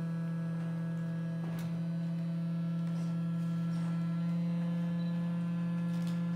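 Steady, buzzing electronic drone from circuit-bent electronics played through a small amplifier: one held low pitch with many overtones, and a few faint clicks over it.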